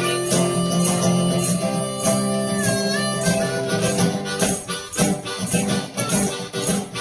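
Blues played by one person on a resonator guitar, a harmonica and a foot tambourine. A chord is held over the first few seconds, and the tambourine jingles in steady time throughout.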